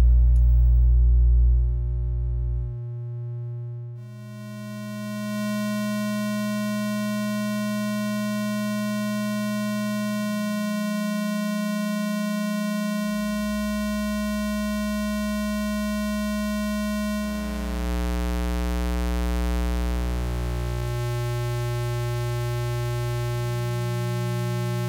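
Synthesized audio waveforms of the kind fed to an XY oscilloscope: steady low electronic tones, some plain and some buzzy with many overtones, held for several seconds and then shifting to new pitches and waveforms a few times.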